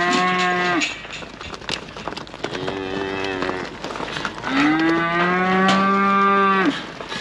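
Calves bawling at feeding time: three moos, a short one right at the start, a fainter one about three seconds in, and a long, loud one starting about four and a half seconds in and lasting about two seconds. Short clicks and knocks sound between the calls.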